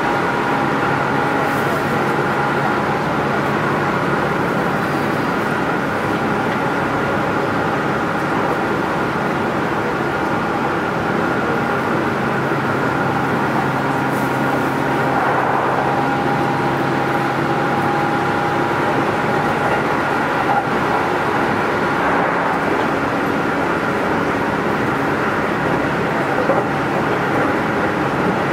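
Keihan 13000 series electric train at a steady running speed, heard from inside the car: a continuous rumble of wheels on rail with a steady, unchanging motor hum.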